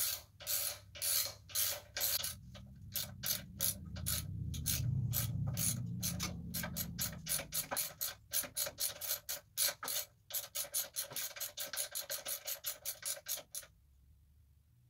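Hand ratchet wrench clicking in rapid back-and-forth strokes as a bolt on a mini bike's engine is turned, the clicks quickening in the second half and stopping shortly before the end. A low hum swells and fades in the middle.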